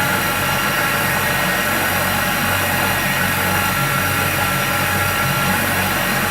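Electric blender motor running steadily at speed, whizzing dry powder (baking soda and washing soda) for homemade dishwasher powder.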